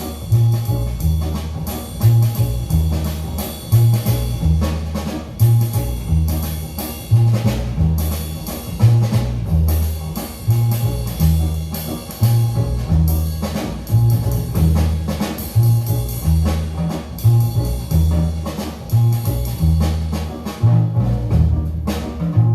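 Recorded jazz-style music played through Bose 701 loudspeakers driven by a Yamaha MX-1 amplifier. A deep bass line pulses about once a second under a drum kit, and a run of crisp drum hits comes near the end.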